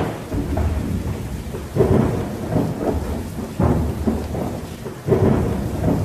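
Film storm sound effects: a continuous rush of rain and wind with heavy rumbling surges about every two seconds, as of a raging storm on a lake.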